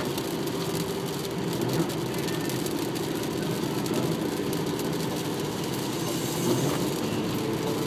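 Steady road and engine noise inside a car's cabin, driving at highway speed on a wet road.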